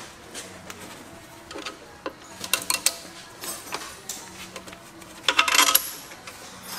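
Small metal parts and hand tools clinking and knocking in a workshop: scattered clicks, then a short metallic rattle about five seconds in.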